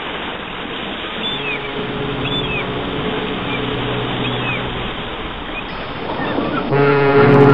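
Sea waves washing steadily, with repeated high seagull cries, each a short falling call about once a second. Low sustained music tones come in underneath and swell louder near the end.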